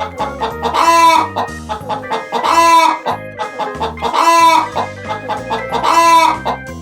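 A chicken calling four times, loud calls of about half a second each, spaced a second and a half to two seconds apart, over background music.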